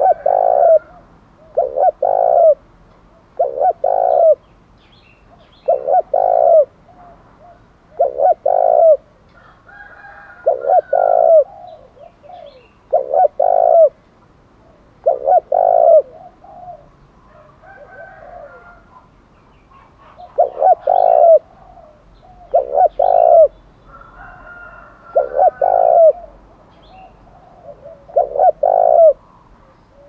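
Spotted dove cooing, repeating the same short phrase of low coos roughly every two seconds, with a few seconds' break past the halfway point.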